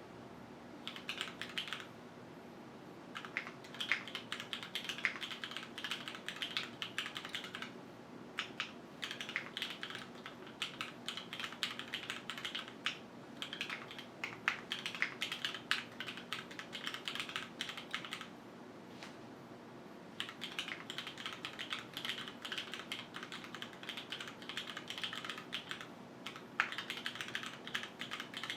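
Typing on a QwertyKeys Neo 65 gasket-mount mechanical keyboard with no foam, Cherry HyperGlide Black linear switches on an aluminium plate and JTK keycaps: keys clacking in fast runs, broken by a few short pauses.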